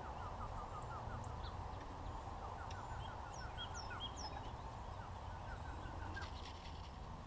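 Birds chirping outdoors in three quick runs of short, repeated rising notes, with a few higher calls in the middle, over a steady low rumble.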